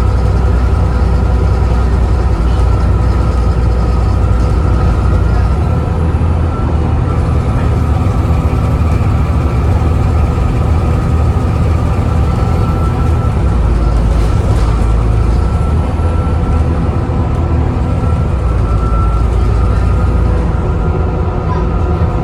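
Volvo B7TL double-decker bus under way, its diesel engine running with a steady high whine from the loud engine cooling fan, the hoover-like sound the bus is known for. The deep engine note shifts about 6 seconds in and again about 14 seconds in.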